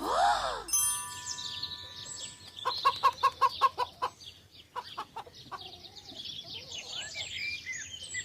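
Chickens clucking, with a quick run of clucks about three seconds in and many short high chirping calls after it.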